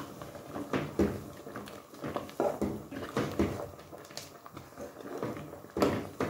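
A spoon stirring thick ogbono soup in a metal pot, giving irregular soft knocks and scrapes against the pot along with wet stirring sounds.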